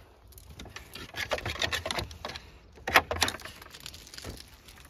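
Footsteps crunching on gravel as a wooden garden gate is opened and passed through, with a sharp knock about three seconds in, the loudest sound here.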